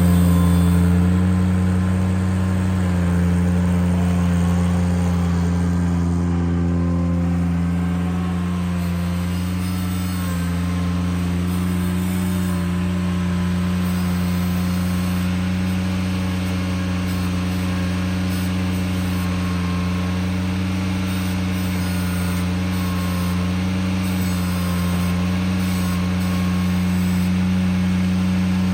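Ventrac compact tractor's engine running steadily, with a few slight dips in pitch as it takes load.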